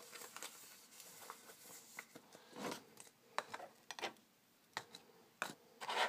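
Faint handling sounds of a small clear plastic tub being dried with a tea towel: light cloth rustles and rubs on the plastic, with a few small clicks and knocks as the tub is handled and set down on the worktop.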